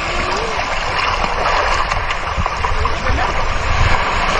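Shallow seawater sloshing and washing close to the microphone, with small waves running up onto the sand: a steady rushing noise with a few low thuds.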